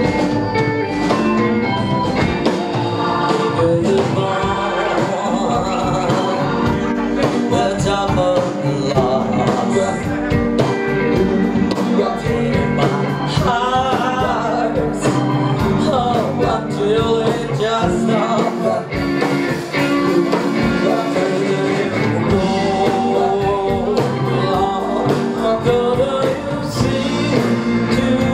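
A live rock band plays: electric guitars, bass, a drum kit and an electric keyboard, with a woman singing lead over a steady drum beat.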